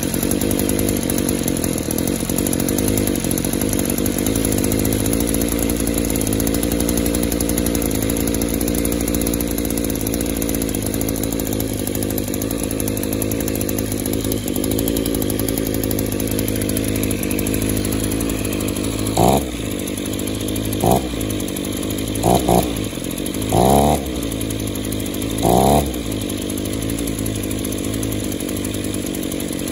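Echo Power Edge 280 edger's small two-stroke engine running steadily, then revved in about six quick throttle blips near the end. It is still running really rich.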